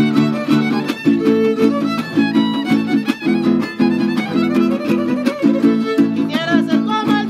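A Huasteco trio playing a huapango instrumental: violin carrying the melody over the rhythmic strummed chords of the jarana and huapanguera.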